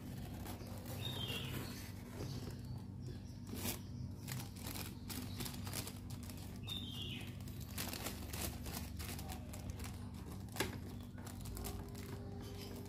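Crinkling and rustling with scattered clicks and taps, the handling noise of building a rubber-powered model plane, over a low steady hum. A bird chirps twice in the background.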